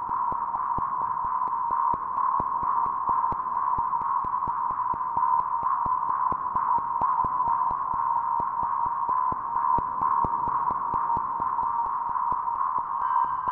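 Synthesized electronic drone: a steady, high, slightly hissy tone, with scattered clicks like crackle running through it.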